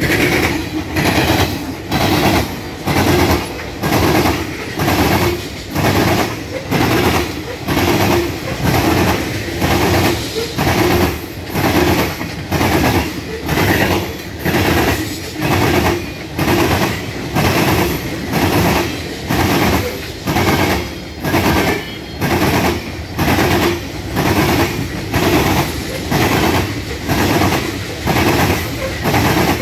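Freight train's open-top hopper cars rolling past at speed, the wheels clacking in a steady pulsing beat about once a second.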